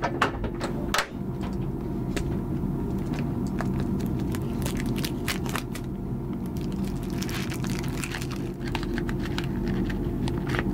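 Cellophane wrapper crinkling and tearing as a new pack of cigarettes is unwrapped and opened by hand, a run of small crackles and rips. A steady low hum runs underneath.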